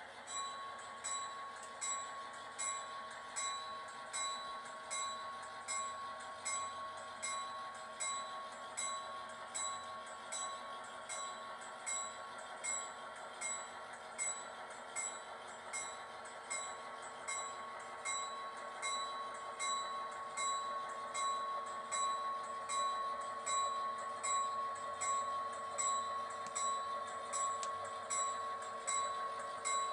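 Model-railroad bell dinging evenly, about three strikes every two seconds, over the steady running sound of model EMD SD40-3 diesel locomotives; it grows a little louder in the second half as the locomotives come closer.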